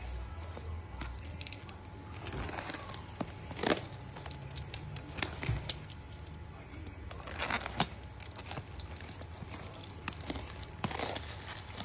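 Parcel packaging being torn open and crinkled by hand: irregular tearing, rustling and sharp crackles throughout.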